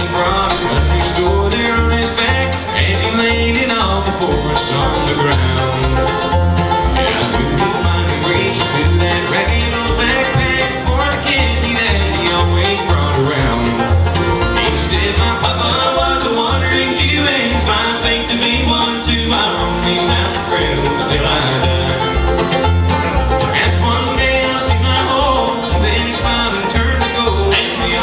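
Bluegrass band playing an up-tempo tune: rolling banjo and strummed guitar over a steady, pulsing bass line, with some bowed fiddle.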